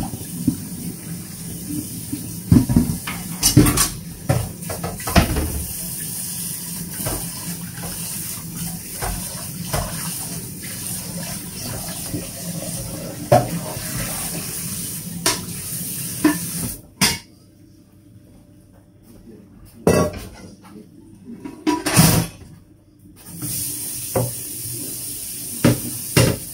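Kitchen clatter of dishes and items being knocked and set down, over a steady rush of running tap water. The water stops about two-thirds of the way in and starts again a few seconds later.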